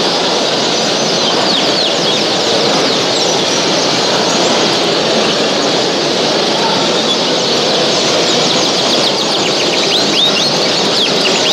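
A hall full of caged show birds chirping and singing all at once: many short, quick chirps over a steady, dense din.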